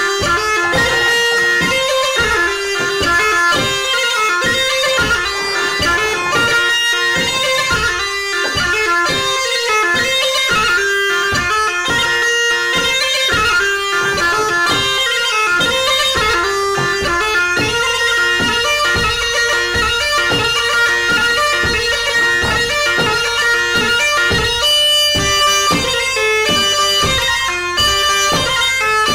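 Background music with a quick, busy melody over a steady beat.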